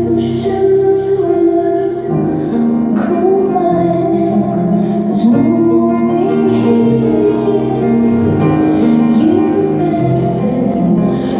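Live music: a woman singing slow, sustained sung lines over instrumental accompaniment, recorded from the audience on a phone.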